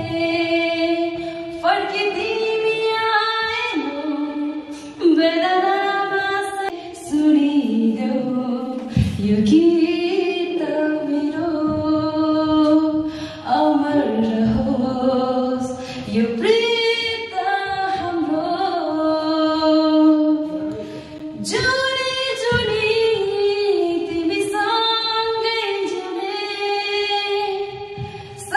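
A woman singing a Hindi song solo into a microphone, holding long notes that slide from pitch to pitch.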